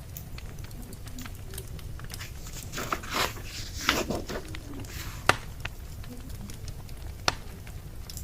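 Wood fire crackling, with a couple of sharp pops over a steady low rumble, and a brief rustling about three to four seconds in.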